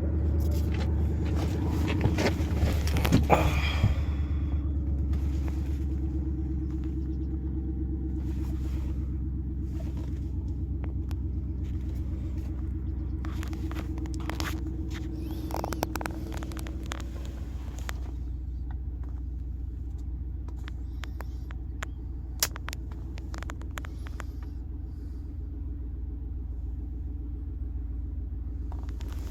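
An engine idling steadily with a low rumble, and a few light clicks and knocks over it.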